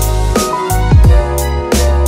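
Background electronic music with a heavy beat: deep bass hits that fall in pitch, roughly every two-thirds of a second, under held synth notes.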